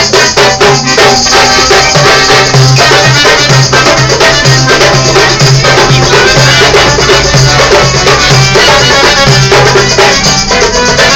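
Accordion playing a tune with a pulsing bass line, while a hand drum and rattling percussion keep a steady beat.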